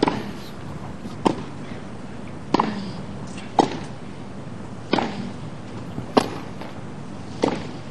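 Tennis rally on a grass court: rackets striking the ball back and forth, seven sharp hits about one every second and a quarter.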